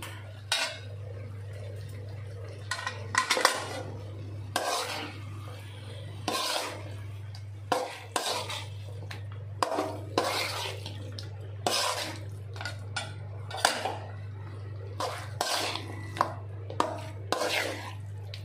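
Metal spatula scraping and clanking against a metal kadai while stirring chicken pieces through a thick masala, in irregular strokes about once a second with a few sharper clanks. A steady low hum runs underneath.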